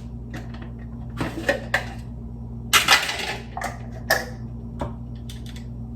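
Kitchen handling clatter: several short bursts of clinks and knocks of dishes and utensils, the loudest about three seconds in, over a steady low hum.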